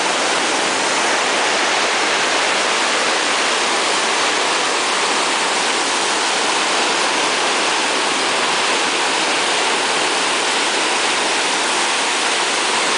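River water pouring over a low weir and churning into white water below it: a steady, loud rushing.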